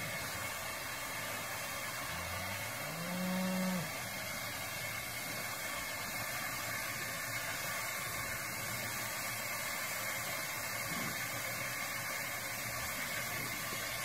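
A cow lowing once, a short moo that rises in pitch and then holds, about two to four seconds in, over a steady hiss.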